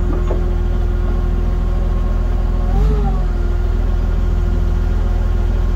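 Propane-fuelled Hyster forklift engine idling steadily as the forklift creeps forward in gear, pushing against a load. The engine note rises and falls briefly about three seconds in.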